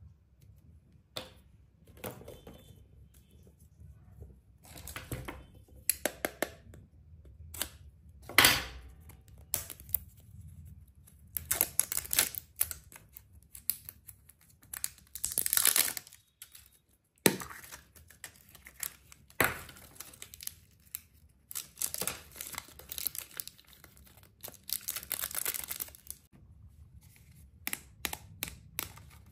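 Hands handling and opening small plastic toys and candy packaging: plastic clicks and taps, with bursts of crinkling and tearing that come and go. The loudest bursts fall about eight seconds in and around sixteen seconds.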